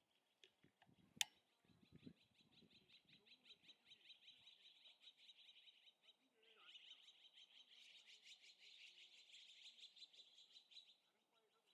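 A faint, high, fast-pulsing trill from a wild animal, running for several seconds with a short break about six seconds in. A single sharp click sounds about a second in.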